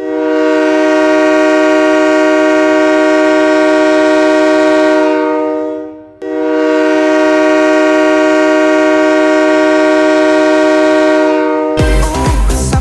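Recorded Nathan K5LA five-chime locomotive air horn sounding as an arena goal horn: two long blasts of a steady chord, each about five and a half seconds, the first fading away. Pop dance music cuts in about a second before the end.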